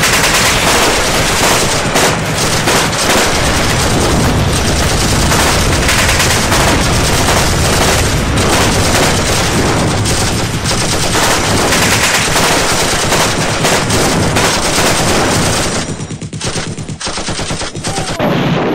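Dense, continuous machine-gun fire laid over the opening titles as a battle sound effect, with overlapping bursts that thin out and turn patchy about three seconds before the end.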